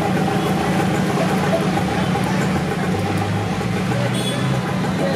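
Steady low rumble of engines and street noise, with no single event standing out.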